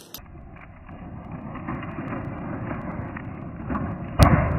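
Fire burning on an RC car, a steady rush with many small crackles, and one sharp, loud bang about four seconds in.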